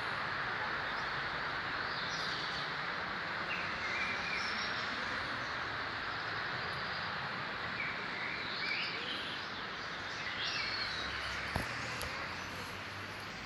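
Small birds chirping in short, scattered calls over a steady rushing background noise, with a single sharp click near the end.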